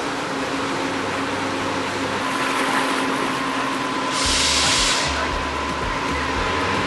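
Steady mechanical hum over a rushing noise as water churns beside a boat's hull in a canal lock. A brief loud hiss comes a little after four seconds in, followed by low bumps of wind on the microphone.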